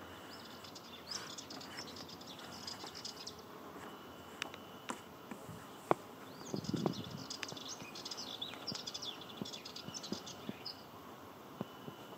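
Sardinian warbler singing: bursts of fast, scratchy chattering phrases, with a gap of a few seconds in the middle. A few sharp clicks and a brief low rumble come during that gap.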